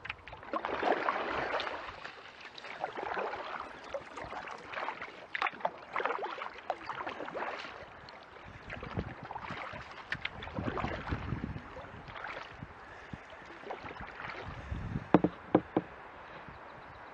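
Kayak paddle strokes: swishes and splashes of the blades through the water every second or two, with a few sharp knocks, the loudest a cluster near the end.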